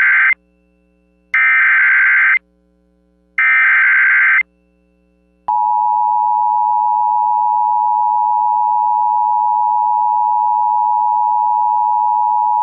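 Emergency Alert System SAME header: three one-second bursts of screechy digital data tones about two seconds apart, the first already ending. About a second later comes the EAS attention signal, a steady, shrill two-tone sound of 853 and 960 Hz played together, which opens a National Weather Service severe thunderstorm warning.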